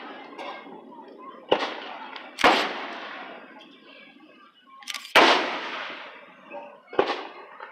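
Aerial fireworks shells bursting: four sharp booms, each trailing off in a long fading echo, the loudest about five seconds in.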